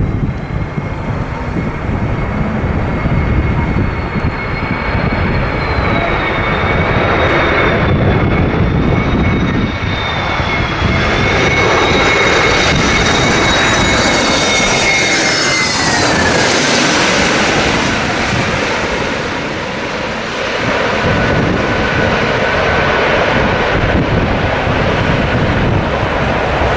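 Twin-engine jet airliner on low approach: the turbofans give a loud roar with a steady high whine that drops in pitch about sixteen seconds in as the plane passes overhead, then settles at a lower whine.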